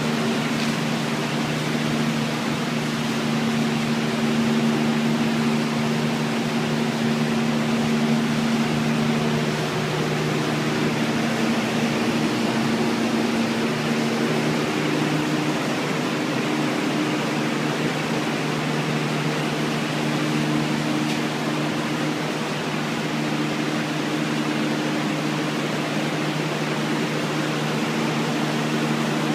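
Steady drone of running machinery: a constant airy rush over a low hum made of several steady tones.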